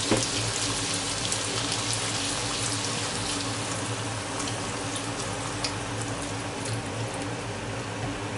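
A hot frying pan of peas and diced ham sizzling steadily as white wine is poured in from a carton.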